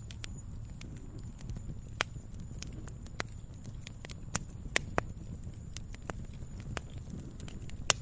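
Firewood burning: a steady low rumble of flame with irregular sharp crackles and pops of the burning wood, the loudest pop just before the end.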